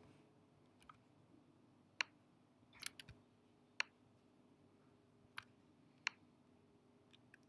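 Faint computer mouse clicks, about seven spread over several seconds with near silence between, as an on-screen image is clicked and dragged to resize it.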